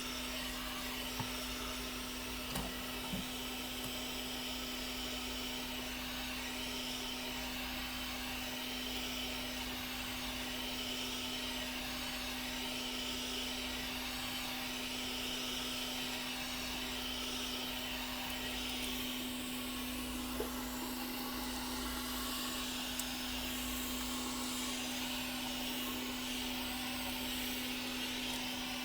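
Hot-air blower running steadily with a constant motor hum and airy hiss, heating the tablet's glued digitizer so the adhesive softens and the glass can be pulled off. A few faint clicks come through near the start and about two-thirds in.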